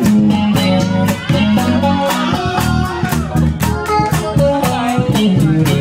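Live band playing with an electric guitar lead over bass and a drum kit keeping a steady beat. The guitar notes bend up and down in pitch.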